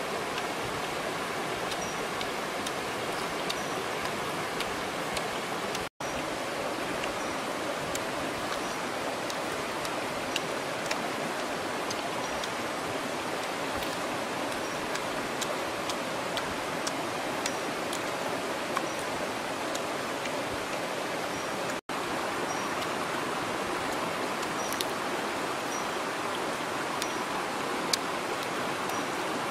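Shallow rocky stream rushing steadily over stones, with scattered faint clicks. The sound cuts out for an instant twice.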